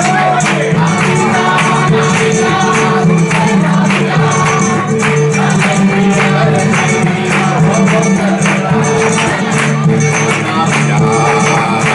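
Live flamenco-style Christmas song: a man singing through a microphone over a nylon-string Spanish guitar, with a group clapping palmas in a steady rhythm.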